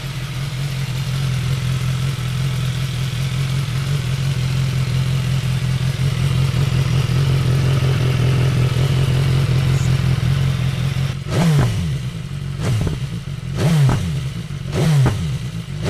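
BMW S 1000 XR's inline-four on its stock exhaust idling steadily just after start-up. About eleven seconds in it is blipped four times, each rev dropping straight back to idle.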